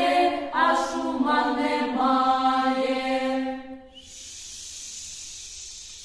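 A choir singing the last phrase of a Ukrainian vesnianka (spring song-game) unaccompanied, the final note held and fading out about four seconds in. A steady recording hiss follows.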